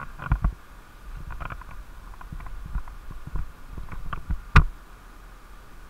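Footsteps on a concrete floor with gear rustling, irregular soft knocks, and one sharp crack about four and a half seconds in.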